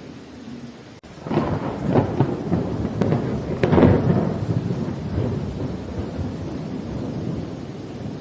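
Thunder rolling over steady rain: after a brief drop-out about a second in, the rumble swells twice, about two and four seconds in, then dies away into a long low roll under the rain.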